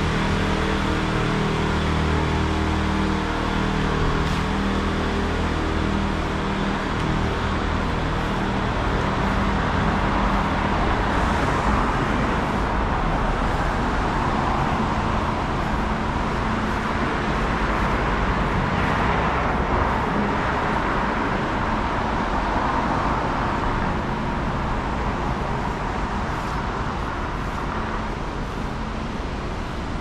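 Downtown street traffic: engines and tyre noise of passing cars, steady throughout. An engine runs close by in the first several seconds, and a louder car passes about twenty seconds in.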